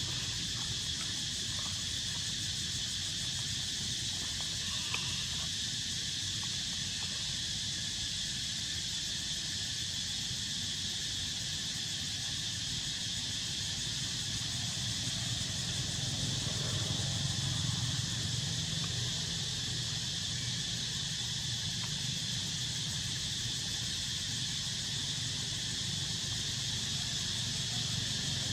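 Steady insect chorus: a constant high buzz over a low rumble that swells slightly about halfway through.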